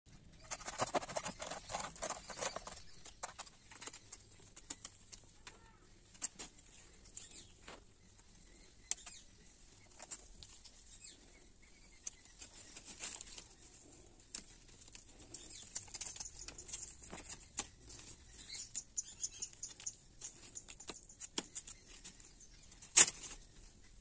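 Knife cutting and scraping lemon twigs on a banana-trunk block: a quick run of rasping strokes in the first few seconds. Then scattered rustles and small clicks of hands working on a lemon branch, with one sharp click near the end.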